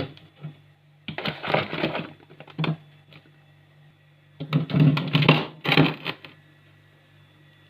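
Food storage dishes clattering and knocking against each other as they are packed into the freezer, in several bursts of rattling, the longest about halfway through. A steady low hum lies underneath.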